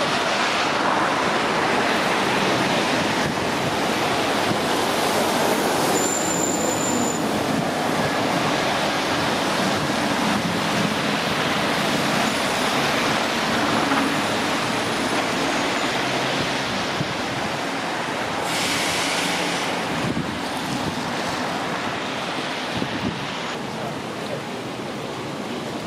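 Steady wash of outdoor noise beside a railway junction: distant traffic and trains, with wind on the microphone. A short high squeal about six seconds in.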